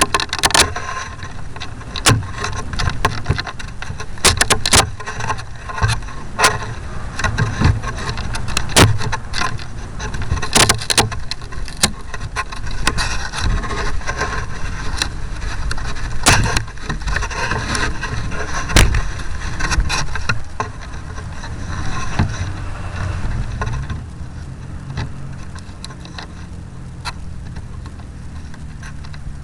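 RC model airplane heard from its onboard camera: a buzzing motor and rushing air, broken by many sharp knocks and rattles. About two-thirds of the way in, the sound drops to a quieter, steadier low hum.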